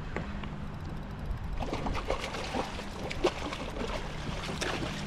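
Hooked jack crevalle thrashing at the surface beside a kayak, with irregular splashes and trickling water that grow busier from about a second and a half in.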